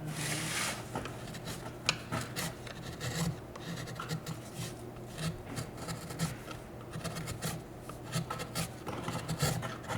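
Hand carving tool scraping and gouging a wooden block in many short, irregular strokes.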